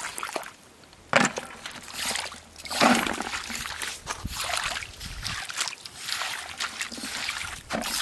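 Rubber boots sloshing through shallow water on a tidal mudflat, with irregular splashes as the tongs dip into the water. A sharp knock about a second in.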